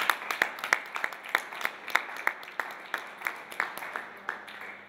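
Audience applauding, a thin spread of separate hand claps at about three strong claps a second, dying away near the end.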